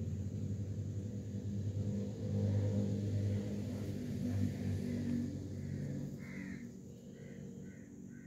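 A motor vehicle's engine running with a low rumble that fades away over the last few seconds. A bird calls a few times near the end.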